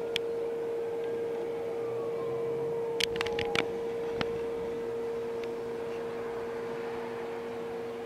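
Faint emergency-vehicle siren wailing, its pitch slowly falling, over a constant steady tone, with a few sharp clicks about three seconds in.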